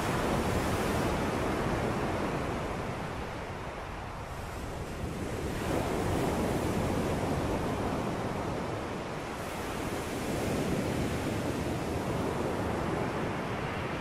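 Ocean surf breaking and washing up a pebble beach. The rush of water swells and eases with each wave, about three times.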